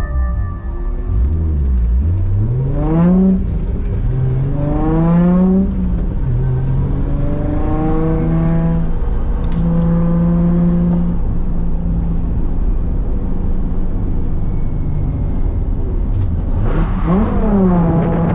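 Holden VY Commodore Calais engine accelerating hard through the gears. The revs climb and drop back with an upshift about 3 seconds in and again about 5.5 seconds in, then hold fairly steady, dip briefly near the end and climb again.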